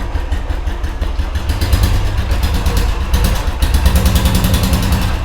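Royal Enfield Classic 350's single-cylinder engine running through its existing silencer at idle, with the exhaust note rising a little twice, about two and four seconds in, as the throttle is opened slightly.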